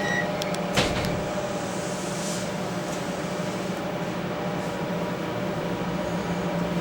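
Comeng electric multiple-unit train giving off a steady hum with several fixed tones. There are a few light clicks and a sharp knock just under a second in.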